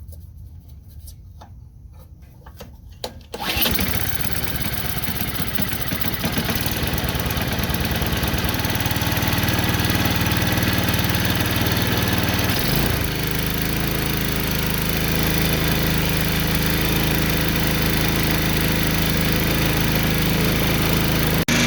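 Snowblower engine pull-started with its freshly re-roped recoil starter: a few light clicks, then the engine catches suddenly about three seconds in and keeps running steadily, with a brief change in its note around the middle. The repaired starter works.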